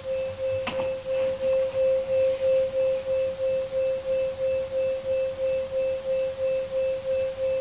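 Two steady sine tones, 528 Hz and 525 Hz, played together from an online tone generator and beating in loudness about three times a second. A faint short click is heard a little under a second in.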